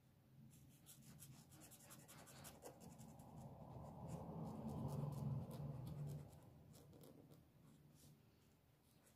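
Faint scratching and rubbing of a pen tip worked back and forth over a colouring-book page in many short strokes, a little louder around the middle.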